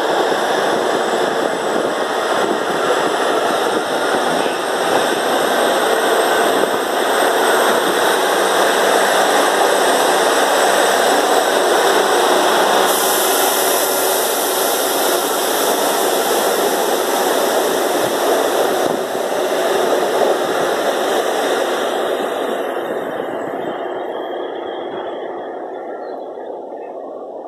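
Class 150 Sprinter diesel multiple unit pulling out and running past close by, its diesel engines under power with wheels rumbling on the rails. The sound fades away over the last few seconds as the unit leaves.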